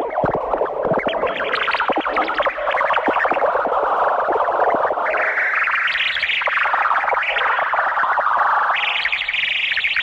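Electronic music led by a harsh, distorted synthesizer, its dense noisy sound stepping up in pitch about halfway through and again near the end.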